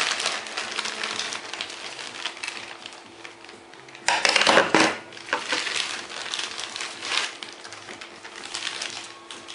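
Plastic parts bag crinkling and rustling as it is opened and handled, with a loud burst of crinkling about four seconds in.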